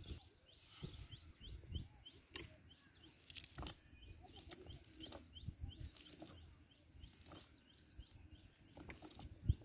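A bird calling over and over, a steady series of short high chirps about two to three a second, with scattered rustles and clicks as the cast net is handled.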